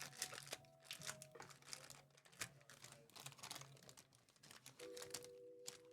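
Faint rustling, crinkling and clicking of Magic: The Gathering trading cards and foil booster pack wrappers being handled. A faint steady tone comes in near the end.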